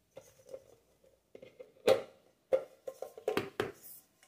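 Rice cooker's non-stick inner pot being handled and lifted out: a string of knocks and clinks, several with a short metallic ring, the loudest about two seconds in.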